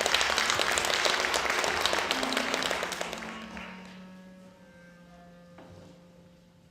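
Audience applauding in a concert hall, the clapping dying away after about three seconds and leaving only faint steady tones underneath.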